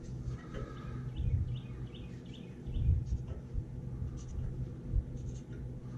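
A marker scratching along sheet metal as a line is drawn on a cab-corner patch panel, with a low steady hum underneath.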